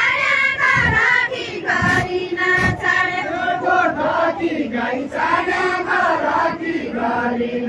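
A group of women singing together in a chant, many voices overlapping. A few dull low thumps land about one, two and two and a half seconds in.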